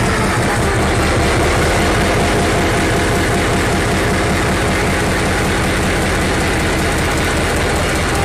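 Diesel locomotive engine running steadily at idle after starting, a low, even engine sound heard from inside the locomotive.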